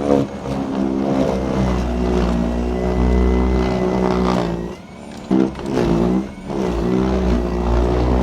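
Battery-powered electric snowblower running under load, a steady motor whine whose pitch sags and recovers a few times as it bogs in wet, heavy snow.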